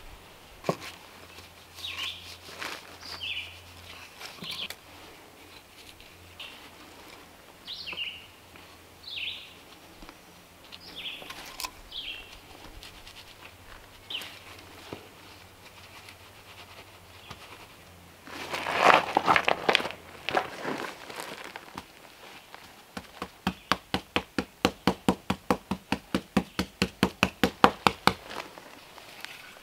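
Scattered short bird chirps, then past the middle a loud burst of rapid rattling, followed by a steady run of sharp knocks at about four or five a second for several seconds.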